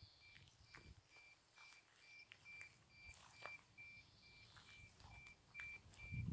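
Faint high-pitched beep repeating about twice a second, each beep short and steady in pitch, stopping shortly before the end, with a few faint clicks.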